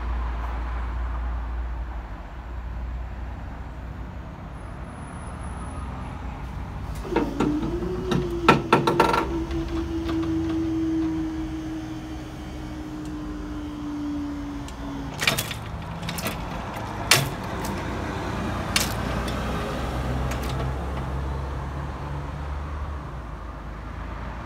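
Level crossing barriers being raised. A few sharp clicks are followed by a steady motor hum that sinks slowly in pitch for about eight seconds, then several separate sharp clacks as the booms come up.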